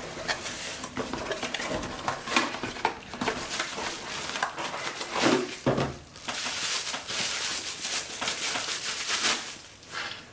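Hands handling a camera battery grip and its packaging: scattered clicks and knocks over rustling, which turns denser for a few seconds past the middle.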